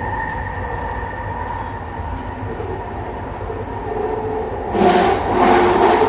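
SkyTrain car running, heard from inside: a steady whine over a low rumble, with a louder rush of noise for about the last second and a half.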